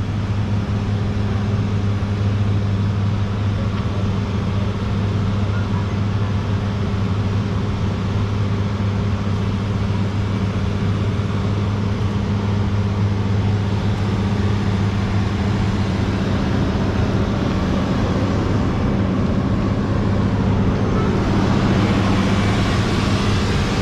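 Excavator's engine running steadily at constant speed with a deep, even hum. The noise grows somewhat fuller over the last few seconds.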